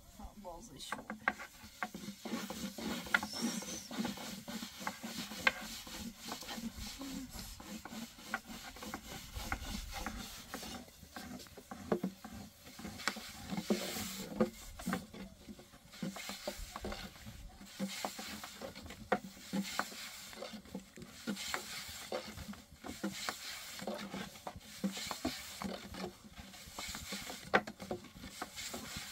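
Long thin wooden rolling pins rolling dough out thin on round wooden boards: irregular rubbing and light clacking of wood on wood.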